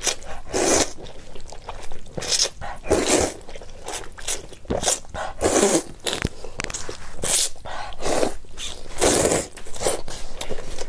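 Loud, wet slurping as wide wheat noodles in spicy soup are sucked up from chopsticks, in short rushes about once a second.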